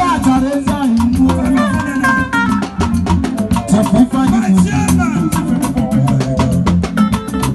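Loud upbeat music with a busy steady beat of percussion and a bass line, with pitched lines that bend like singing or a lead instrument.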